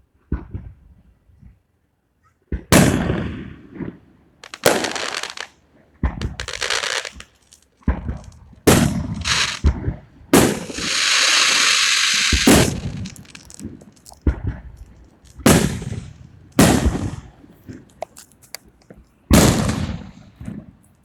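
A series of sharp bangs, roughly one every one to two seconds, each fading out quickly, with a steady hiss lasting about two seconds near the middle.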